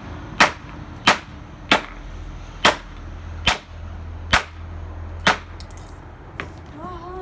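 A hammer striking the speaker unit of a Dreamsky DS206 alarm clock radio seven times, sharp blows about one a second, the speaker holding up and not breaking.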